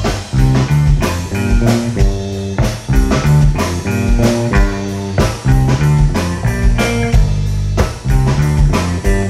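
Live blues-rock band playing an instrumental passage: electric guitars over a bass guitar line and a drum kit keeping a steady beat.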